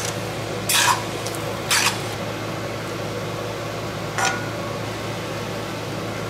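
A long-handled spoon scraping and knocking against a wok and plate as noodles are tossed and served, three short scrapes about a second apart and a third a few seconds later, over a steady low hum.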